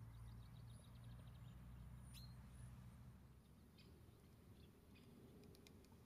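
Near silence: faint outdoor ambience with a low rumble, a quick run of faint high ticks near the start, one sharp high chirp about two seconds in and a few faint short bird calls later.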